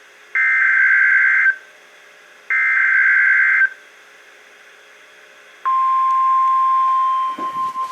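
EAS SAME header data bursts from a NOAA Weather Radio broadcast: two harsh one-second digital screeches about a second apart. Then, just past the midpoint, the steady 1050 Hz weather radio alert tone starts, marking the start of an emergency alert. The tone's level wavers toward the end.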